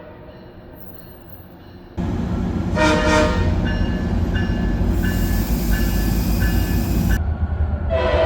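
A passing train's heavy rumble comes in abruptly about two seconds in, with a short locomotive horn blast soon after. A bell then rings about twice a second over loud hiss, and a second horn blast sounds near the end.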